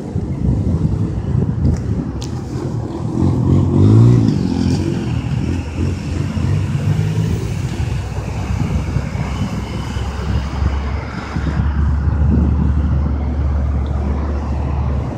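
Road vehicles passing near the grade crossing: one engine revs up and falls away about four seconds in, then a steady low engine hum sets in later, all over a low rumble.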